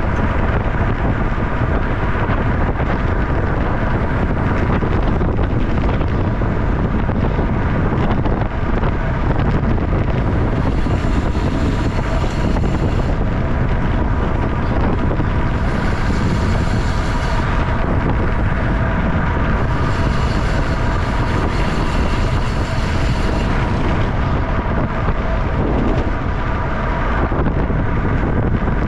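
Steady rush of wind on the microphone of a racing bicycle at about 25 mph, mixed with tyre and road noise. A higher hiss comes and goes three times in the middle.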